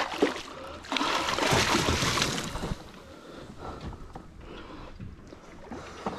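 Hooked yellowtail thrashing and splashing at the surface beside a kayak, a loud splash of about two seconds starting a second in, with quieter water sloshing and a few light knocks on the hull around it.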